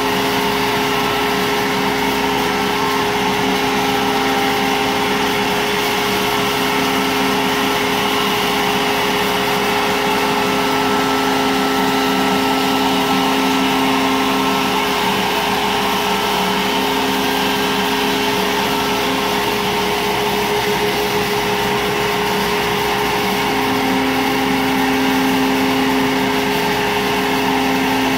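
CNC router spindle cutting an aluminium composite sign panel, a steady loud whine over the noise of the dust extraction. A lower hum swells and fades several times as the bit moves through the cut.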